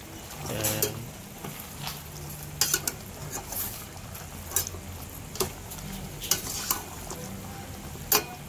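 A spoon stirring chicken skins in a stainless steel pot, with wet scraping and sharp clinks against the pot's side several times.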